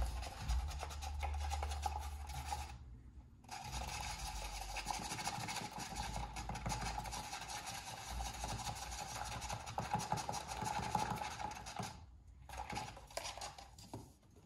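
A utensil stirring and scraping a paste of toothpaste, baking soda and warm water around the inside of a paper cup, a fast rasping rub that stops briefly twice.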